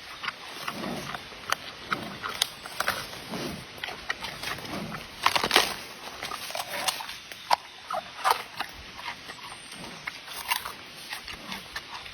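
Panda sounds: soft low grunts about once a second, amid irregular sharp clicks and cracks, with a louder crackling cluster about five and a half seconds in.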